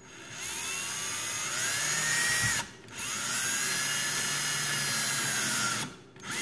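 Cordless drill-driver driving a screw, set to a low clutch setting, running in two long bursts with a short pause between them, the motor whine rising as each burst spins up, then a brief blip near the end.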